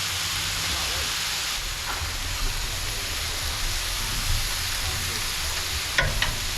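Rice, vegetables and chicken sizzling steadily on a Blackstone flat-top griddle, with a couple of sharp clicks about six seconds in.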